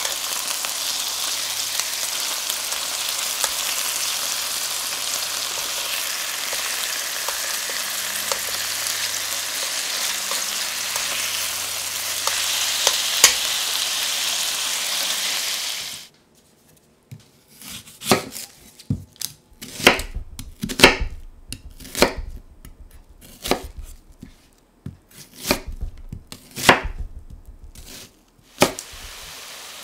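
Boneless chicken thigh fillets sizzling steadily as they sear in a hot stainless steel pot, with small ticks as tongs turn them. The sizzle cuts off suddenly about halfway through. After a short quiet, a knife cuts a white onion on a wooden chopping board in a slow, uneven series of sharp strikes.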